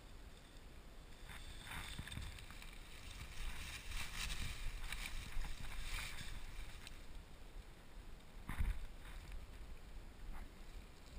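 Dry fallen leaves rustling and crunching as a player moves against a leaf-covered slope, loudest a few seconds in, with low knocks of handling on the microphone and a sharper thump near the end.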